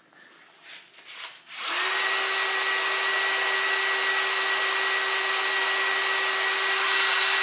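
Cordless drill starting up just under two seconds in and running at a steady speed, its bit boring into a hardened steel cylinder head bolt to drill it out. It gets a little louder and brighter near the end.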